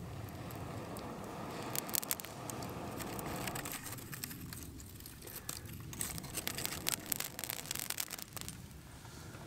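Embers of a burning log in a campfire crackling and popping as a metal rod works at the glowing wood, with a rushing, scraping noise in the first few seconds and a cluster of sharp pops later as sparks fly.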